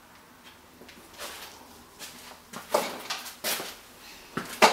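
A few irregular knocks and scrapes, the loudest a sharp knock near the end.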